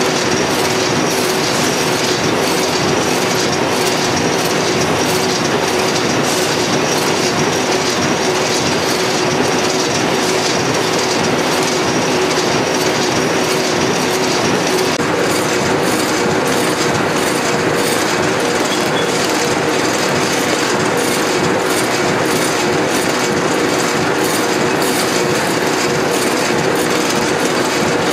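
Flexo folder gluer for corrugated boxes running, with board blanks feeding through its folding section: a loud, steady mechanical noise with a constant hum and rapid, irregular clicking and clattering.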